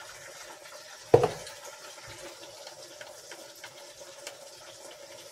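A spoon and wooden spatula working in a frying pan of minced meat on a gas stove, with one sharp knock about a second in and a few light clicks after, over a faint steady hum.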